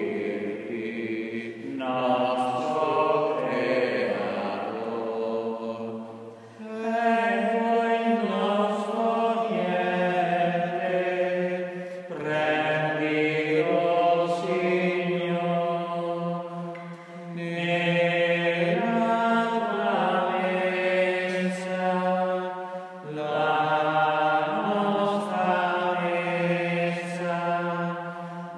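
Slow chanted hymn at the offertory: long held notes sung in phrases of about five to six seconds, with short breaks between phrases.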